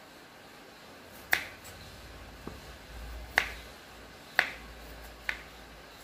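Four sharp, short knocks at uneven intervals, with a fainter one between the first two, over a faint low rumble.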